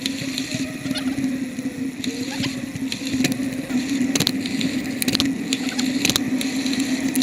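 Bicycle in motion: a steady low hum with frequent sharp clicks and rattles throughout, and a faint wavering whine above.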